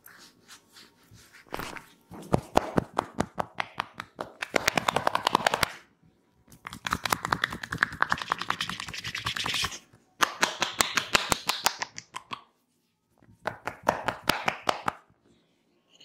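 Percussive massage: hands and loose fists tapping rapidly on a person's back and shoulders, in several fast runs of sharp slaps, each a second or more long, with short pauses between.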